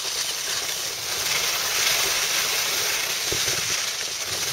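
Steady hiss of skis sliding over snow.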